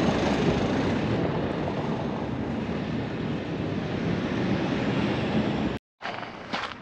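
Steady rushing wind on the microphone. It cuts off abruptly near the end, followed by quieter sound with a few light taps.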